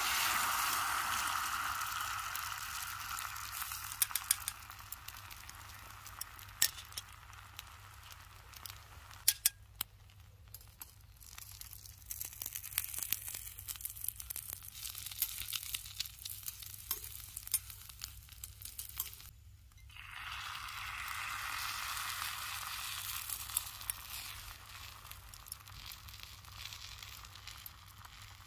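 Food sizzling in a hot pan, loud at first and slowly dying down, with sharp clicks and scrapes of a utensil against the pan. About twenty seconds in it briefly goes quiet, then a fresh burst of sizzling starts and slowly fades again.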